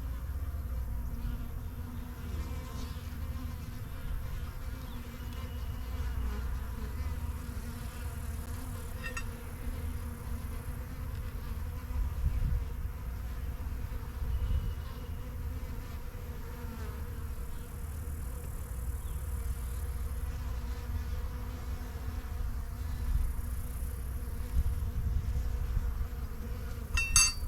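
Honeybees buzzing steadily around an opened hive during an inspection, a continuous hum over a low rumble, with a sharp click near the end.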